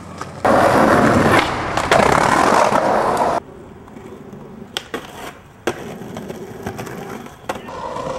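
Skateboard wheels rolling loudly over rough concrete for about three seconds, ending abruptly. Then quieter rolling, broken by a few sharp wooden clacks of the board.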